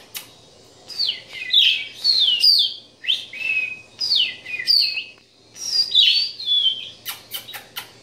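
Budgerigar chirping: a run of short calls, each sweeping down in pitch, followed near the end by a few quick sharp clicks.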